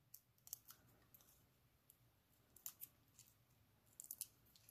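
Near silence, broken by a few faint, short clicks and light crinkles as fingers peel the backing off small foam adhesive dimensionals. There is a cluster of them about four seconds in.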